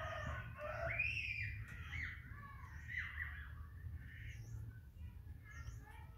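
Birds calling: a rooster's crow trailing off at the start, then several arched squawking calls over the next few seconds and faint high chirps, over a steady low rumble.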